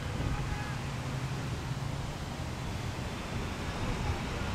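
Steady low rumble of wind on the microphone, with faint distant voices of people calling out now and then.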